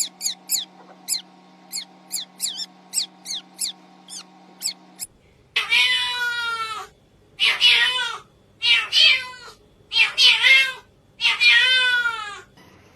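A cat meowing five times in long, drawn-out calls of about a second each. Before the meows come several seconds of quick, short, high chirps that fall in pitch.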